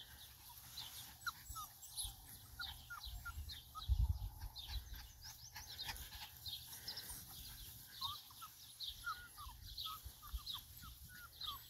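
Faint animal calls: many short, high-pitched falling chirps and squeaks, scattered throughout, with a low thump about four seconds in.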